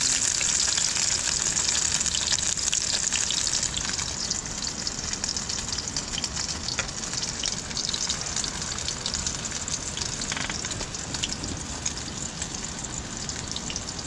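Sausages sizzling in a small frying pan on a camping gas canister stove, a steady hiss dotted with many small crackles.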